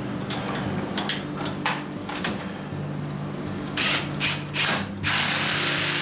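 Workshop machining setup: a few sharp metallic clicks and clinks over the steady hum of running shop machinery. About four seconds in come three short bursts of hiss, then a loud, steady hiss that carries on to the end.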